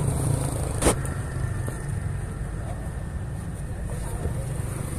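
Steady low rumble of roadside traffic, with a single sharp click a little under a second in.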